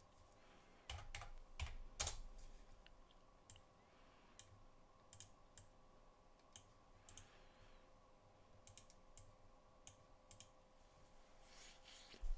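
Faint, scattered clicks of a computer keyboard and mouse, with a few louder ones about one to two seconds in and sparse ones after that, over a faint steady hum.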